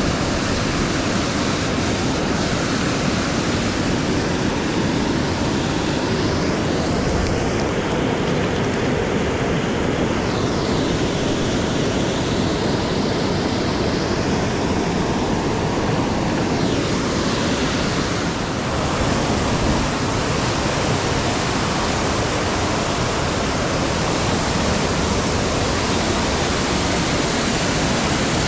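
Rushing water of a fast mountain river or waterfall, a steady loud noise with no break.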